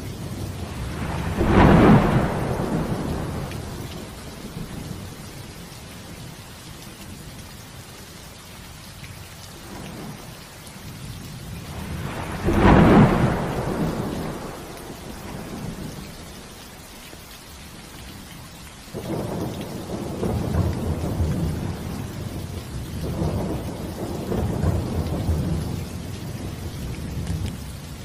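Steady heavy rain with thunder: two sharp thunderclaps, about 2 seconds in and about 13 seconds in, each tailing off in a rumble, then a long low rolling rumble through the last third.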